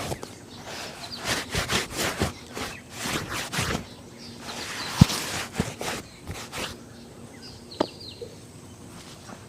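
Shoe being polished by hand: a run of quick rubbing strokes over the leather, then a few sharp knocks, with birds chirping faintly outdoors.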